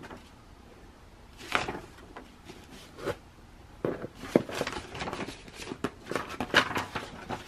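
Paper and cardboard rustling and tapping in an opened dog subscription box as a Doberman puppy noses through the packing paper. The rustles are scattered and irregular, growing busier in the second half as a hand lifts out a card.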